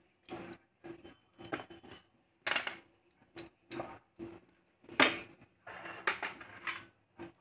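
Scattered clinks and knocks of a china plate against a stainless steel cooking pot as chicken bones are pushed off the plate into the soup water, about a dozen short strikes with the loudest about two and a half and five seconds in.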